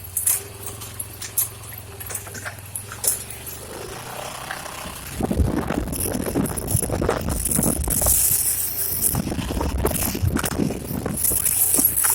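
Honda Pioneer 700-4 side-by-side on an off-road trail, its engine running with light clicks and rattles. About five seconds in it gets much louder and rougher, with dense rattling as the vehicle pushes over rough ground.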